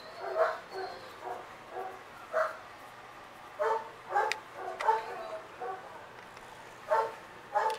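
Dog barking in short, scattered yelps, about a dozen, some in quick pairs.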